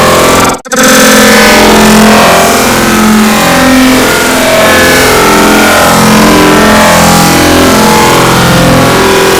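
Sneeze sound effects sped up to an extreme, no longer heard as sneezes but as a very loud, harsh, distorted buzzing drone of shifting tones, cutting out for a split second about half a second in.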